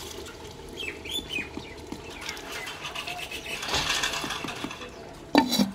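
A wooden spatula stirs potatoes and spinach in water in a clay pot, with small scraping and knocking sounds. Birds chirp briefly about a second in, and a loud knock comes near the end.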